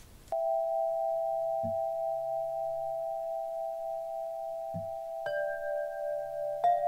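Glass tube chimes struck and left ringing in long, steady tones. Two more strikes, about five seconds in and just before the end, add higher notes over the ringing.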